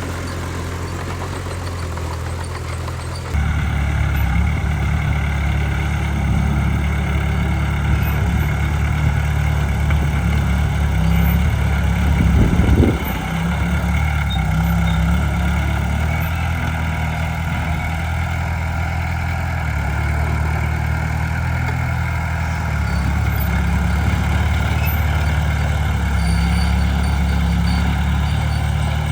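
Heavy diesel engine of earthmoving machinery running steadily. It gets abruptly louder about three seconds in and surges briefly around the middle.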